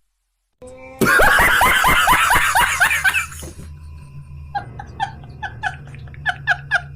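A burst of high-pitched laughter, a fast run of falling 'ha' syllables lasting about two seconds, starting after a brief silence. It is followed by quieter music with short repeated notes about twice a second.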